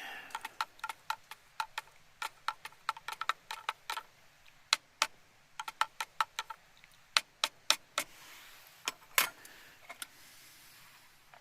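Metal spoon clinking against the inside of a mug while a drink is stirred: irregular sharp clinks, two to four a second, each with the same short ring.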